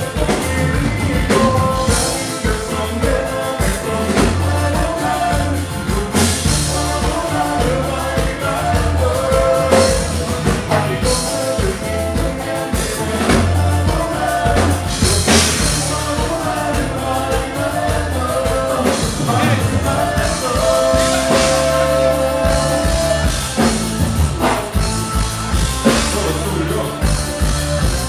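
Live Tejano band playing loud: a singer over drum kit and keyboards.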